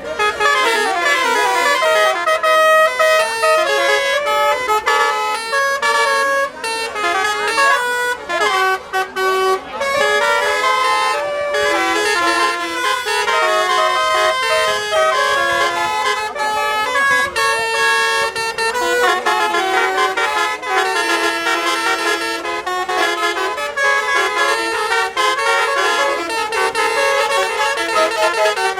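Basuri telolet horn on an Indonesian bus playing a fast melody, its notes stepping up and down almost without pause, with a few short breaks about nine seconds in.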